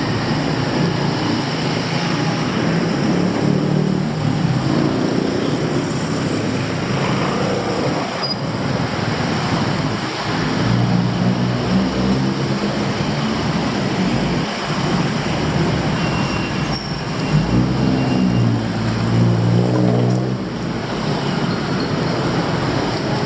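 Steady street traffic noise. Vehicle engines swell up as they pass three times; the last one rises in pitch as it accelerates.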